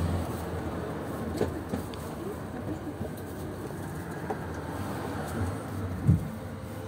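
Tram running, heard from inside the front of the car: a steady rumble and motor hum with a few light knocks, and one louder thump about six seconds in.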